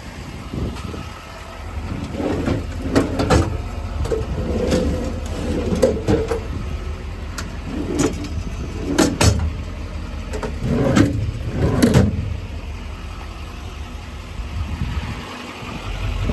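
A series of sharp clunks and knocks, about eight of them, over a steady low rumble, with the rumble settling into a steadier low hum near the end.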